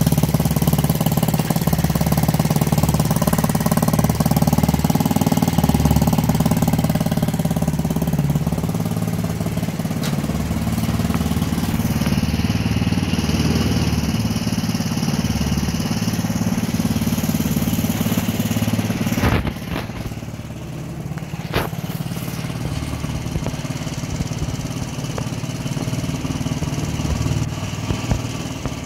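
A small engine running steadily. About two-thirds of the way through there is a click and the level drops abruptly, and it carries on quieter.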